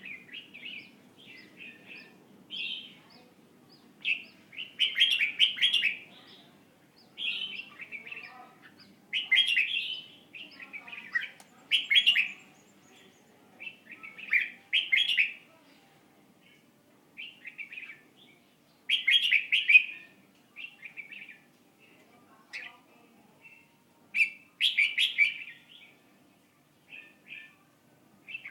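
A pet bird chirping in repeated short bursts of rapid, high calls, a burst every second or two, over a faint low steady hum.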